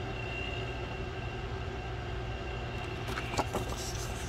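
Steady low background hum, with a faint rustle of paper cards being handled about three seconds in.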